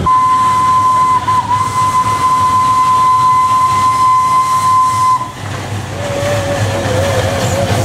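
Narrow-gauge sugar-mill steam locomotive's whistle blowing one long steady blast of about five seconds, wavering briefly about a second in. Near the end a lower, fainter whistle note sounds, wavering in pitch.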